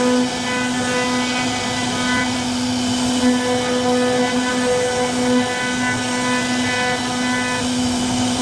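CNC router spindle running steadily with a constant whine, carving wood, over a rough hiss of cutting.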